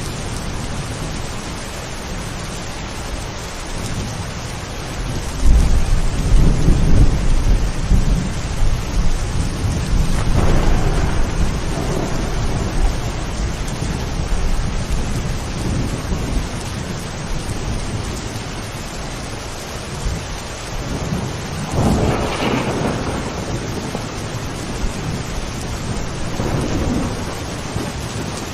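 Steady heavy rain with thunder: a long low rumble rolls in about five seconds in and lasts several seconds, and shorter rolls of thunder follow later.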